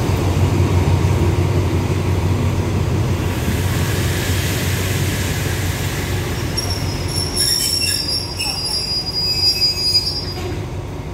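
Passenger train coaches rolling slowly past with a low rumble that eases off as the train slows. From about six and a half seconds in, a high-pitched wheel-and-brake squeal runs for around four seconds as the train brakes to a stop.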